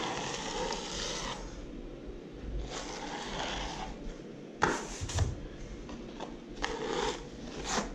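A blade scraping and smoothing wet filler across a plaster ceiling in a series of strokes, a few long and soft and a few short and sharp, as a second coat is spread over scrim tape.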